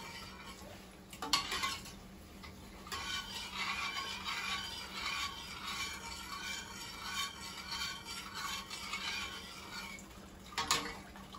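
A metal spoon stirring and scraping around a stainless steel saucepan of vinegar and sugar, dissolving the sugar for a pickling brine, with sharp clinks of the spoon against the pan about a second in and near the end.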